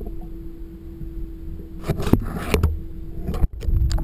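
Muffled underwater sound picked up through a submerged camera housing: a steady low rumble and hum, with a cluster of knocks and rattles on the housing about two seconds in.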